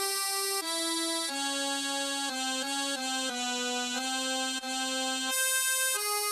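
Instrumental music: a lone melody of held notes, one note after another, with no drums or bass.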